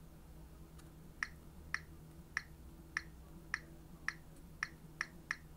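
Nine short, sharp clicks, about half a second apart, as a message is tapped out with a stylus on an Android phone's touchscreen keyboard. A faint low hum runs underneath.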